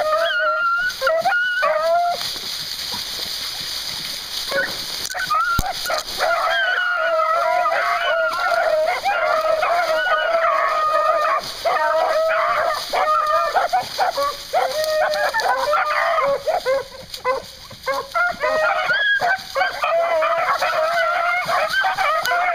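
A pack of beagles baying and yelping together, many voices overlapping, as the hounds work a scent trail. The cry thins out for a few seconds about two seconds in, then the full pack takes it up again.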